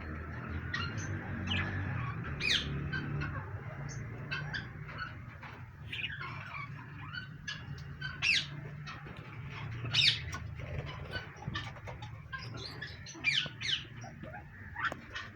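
Pet birds chirping and whistling: many short, sharp calls sliding in pitch, a few much louder than the rest, over a steady low hum.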